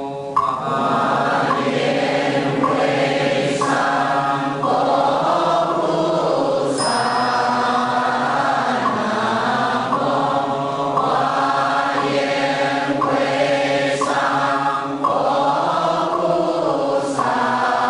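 A group of voices chanting a Buddhist mantra in unison, in long sustained phrases with short breaks for breath. A bright ringing strike sounds about seven seconds in.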